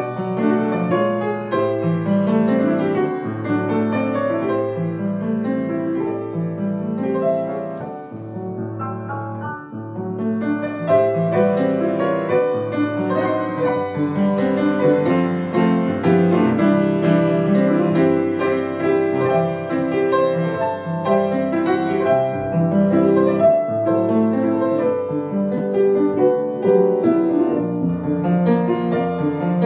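Grand piano played solo, a melody over a steady accompaniment of chords; the playing softens briefly about eight to ten seconds in, then returns to full strength.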